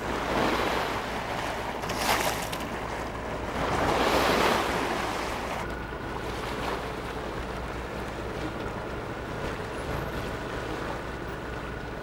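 Sea water rushing and splashing along the bow of a moving boat, with wind on the microphone; it swells louder about two and four seconds in. A steady low drone runs underneath.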